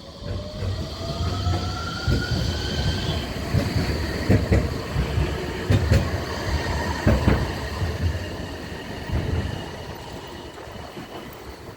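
Nottingham Express Transit Bombardier Incentro tram pulling away, its traction motors giving a rising whine. Its wheels then knock over rail joints several times while the rumble fades into the distance.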